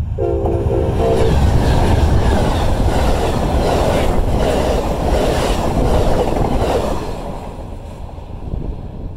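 Amtrak Southwest Chief passenger train passing close by at speed: a short horn blast from the locomotive as it arrives, then the rush of the double-deck Superliner cars with wheels clicking over the rail, dropping away about seven seconds in as the train goes by.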